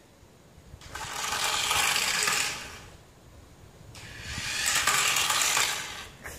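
Small electric motor and gears of a toy remote-control car whirring as it drives, in two runs of about two seconds each, the first starting about a second in and the second about four seconds in.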